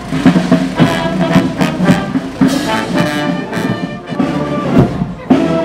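Marching brass band playing a march as it walks, with trumpets, trombones and horns over a steady drum beat.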